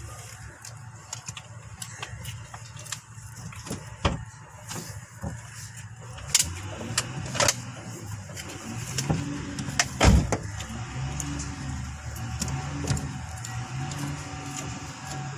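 Maruti Suzuki WagonR engine idling, then revved up and down over and over from about eight seconds in as the accelerator pedal is pumped. Scattered clicks and knocks run through it, with two louder knocks about four and ten seconds in.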